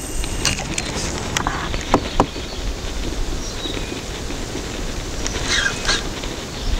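Open-air river ambience: a steady rushing haze with a low rumble, as of wind on the microphone. Two sharp clicks come about two seconds in, and a bird calls briefly a couple of times near the end.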